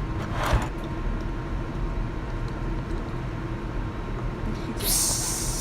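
Aerosol can of shaving cream spraying foam, a loud hiss lasting about a second and a half near the end, over a steady low background hum. A brief rustle comes about half a second in.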